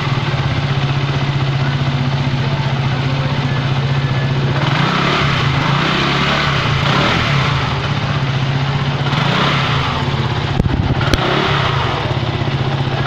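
Dafra Cityclass 200 scooter's single-cylinder engine running steadily. There are two short clicks about three-quarters of the way through.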